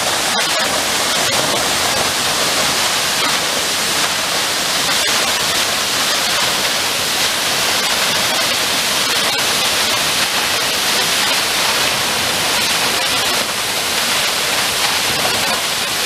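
Waterfall plunging down a narrow rock cleft: a loud, steady rush of falling water.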